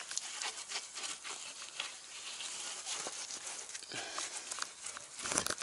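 A wet wash sponge scrubbing a mountain bike's front fork and frame: irregular rubbing with many small clicks, and a louder burst near the end.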